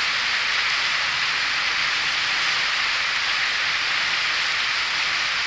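Fast, shallow mountain river rushing over a stony bed: a steady, even rush of water.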